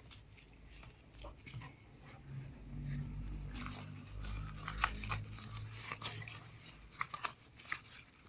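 A glove being pulled onto a hand: soft rustling with a few small snaps and clicks, most of them in the second half. A low hum sits under the middle few seconds.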